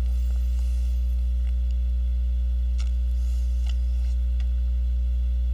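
Steady low electrical hum, like mains hum, with a few faint ticks.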